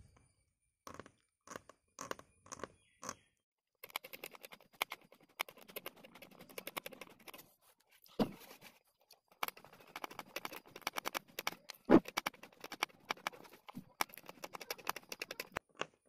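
Piece of razor blade scraping the plastic insulation off the end of a flexible flat cable against cardboard, stripping it to bare the contact pins. It starts with a few separate short strokes, then goes into fast runs of fine scratching, with a couple of dull knocks between them.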